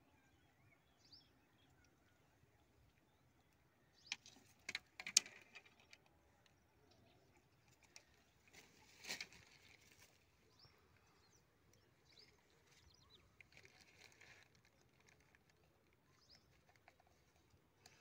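Mostly quiet, with scattered short rustles and knocks of a caught fish being handled in a mesh net and plastic bags, the loudest a cluster about four to five seconds in and another about nine seconds in.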